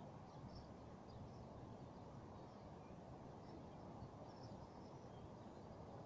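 Near silence: faint outdoor background with a steady low rumble and scattered faint, short bird chirps.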